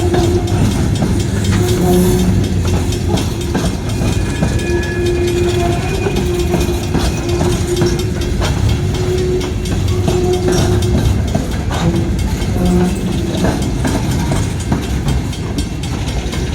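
Train cars rolling past, with a steady rumble, wheels clattering over the rail joints, and brief squeals coming and going.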